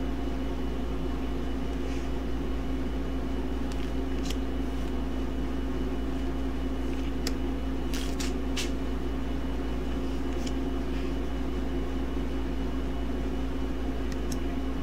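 Steady low hum with a constant tone, with a few faint, short clicks of trading cards being handled and flipped through.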